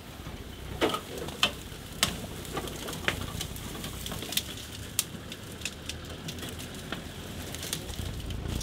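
Irregular crackling and snapping of twigs and brush around an open safari vehicle edging slowly through thick bush, with a low steady rumble underneath.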